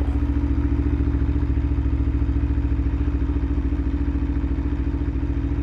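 Aprilia Tuono 1100RR's V4 engine idling steadily, with an even pulse and no change in pitch.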